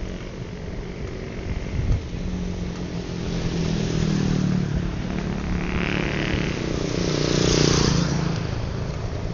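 Motorcycle engine running in street traffic, swelling in loudness and loudest about eight seconds in.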